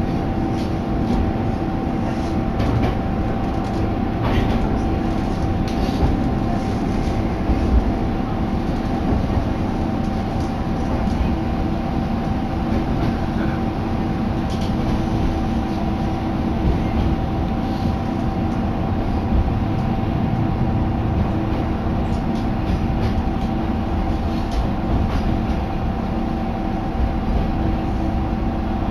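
Diesel railcar running, heard from inside the car: a steady rumble of engine and wheels with a constant hum, and a few light knocks from the track.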